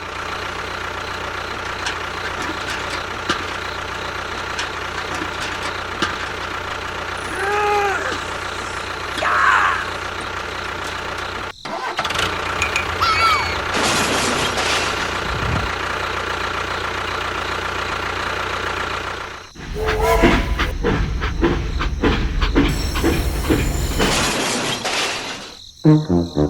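Small motors of miniature DIY construction vehicles running steadily, in several clips that change abruptly, with a few short voice-like calls over them.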